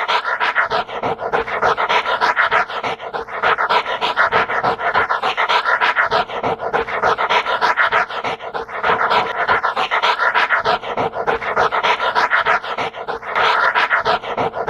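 A dog panting rapidly and steadily, a continuous stream of quick breaths.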